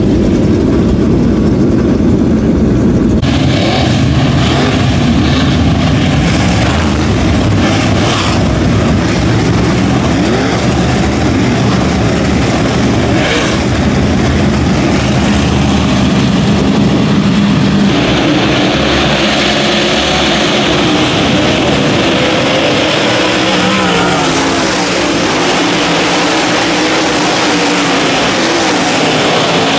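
Dirt late model race cars' V8 engines. First comes a low rumble close to a car in the pits. After a cut about three seconds in, cars run hard around the dirt track, their engines revving up and down through the turns. After another cut, more than halfway through, the whole field runs together in a dense, loud wall of engine noise.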